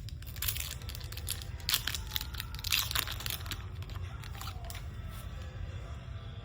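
Foil wrapper of a trading card pack crinkling and tearing as it is handled and opened, in quick bursts of rustling that die down after about three and a half seconds.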